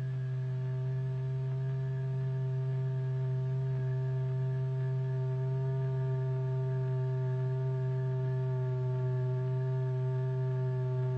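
A steady low pure tone, the note that drives a membrane covered in lycopodium powder to vibrate, with several fainter higher tones held above it. It swells slightly over the first few seconds.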